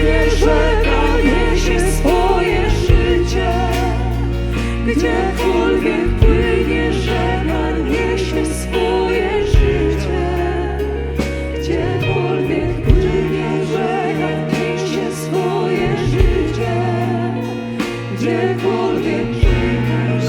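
A church worship band playing slow music, with singing voices over long bass chords that change every few seconds, and scattered sharp percussion hits.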